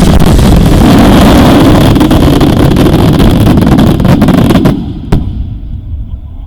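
Fireworks barrage: a loud, dense run of bangs and crackling that cuts off suddenly about four and a half seconds in, followed by one last single bang.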